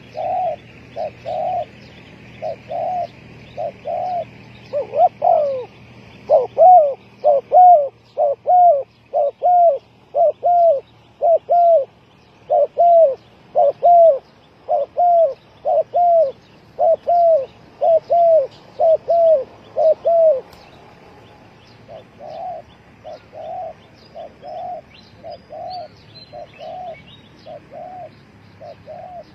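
Spotted doves cooing: a long series of short, falling coos, about one and a half a second. The coos are loud for the first twenty seconds or so, then carry on more softly.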